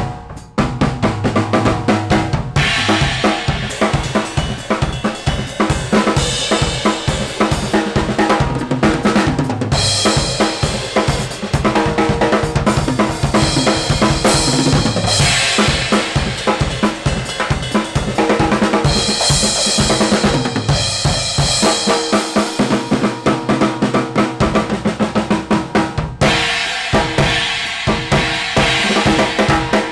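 Acoustic drum kit played fast, with rapid strokes on snare, toms and kick drum. Cymbal crashes and washes come and go through the passage.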